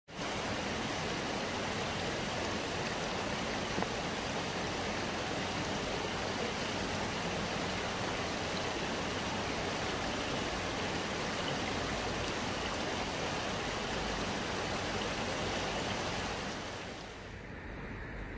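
Stream water rushing steadily through the gaps of a concrete stepping-stone crossing. About a second before the end it drops to a quieter, duller rush.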